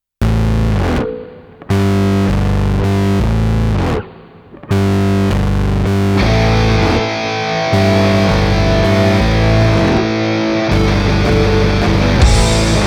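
Rock music with distorted electric guitar chords; the guitar breaks off twice early on, then a fuller riff builds and drums come in near the end.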